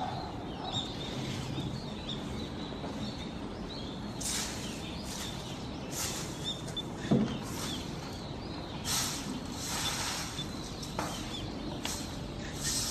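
Azure-winged magpie bathing in shallow water, splashing in a series of short bursts as it dips and flutters, several of them in the second half. Faint bird chirps sound in the background, and a single low thump a little past halfway is the loudest sound.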